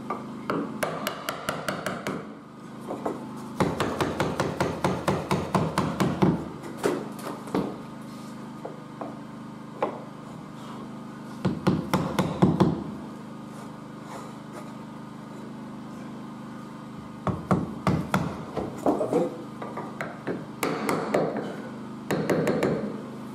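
Hammer tapping a small piece of oak capping down into place, in quick runs of light blows, about four or five a second, with pauses between runs.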